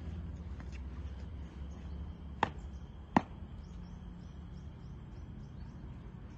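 Two sharp boot stamps on brick paving about three-quarters of a second apart, the second louder: a marching foot-drill halt, feet brought in smartly to stand at attention. A steady low rumble runs underneath.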